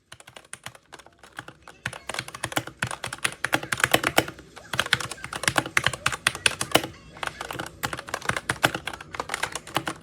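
Typing on a 60% mechanical keyboard with red (linear) switches: rapid, dense keystrokes, lighter for the first two seconds, then fast, with a couple of brief pauses.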